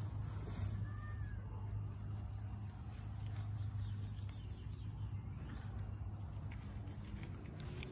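Golden retriever puppies playing in grass. One gives a brief faint whine about a second in, and a weaker one comes later, over a steady low hum.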